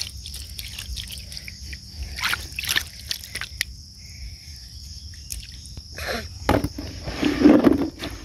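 Hands splashing and scooping in shallow muddy water while lifting a large snail out of wet sand, in short sloshes, louder near the end. A steady insect chorus of crickets runs underneath.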